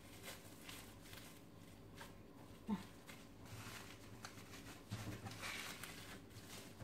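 Faint crinkling and rustling of plastic cling film as a wrapped log of pistachio lokum is twisted closed and rolled by hand on a countertop. There is a brief vocal sound a little before halfway.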